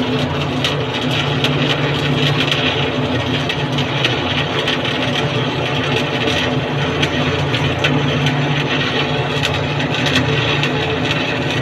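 Arc welding: a steady machine hum under a continuous crackling sizzle, with frequent small pops.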